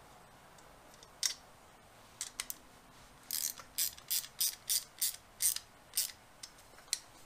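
Metal hand tool clicking as it is worked on a welder's ground cable and clamp: a few scattered clicks, then a steady run of about ten ratchet-like clicks, roughly three a second.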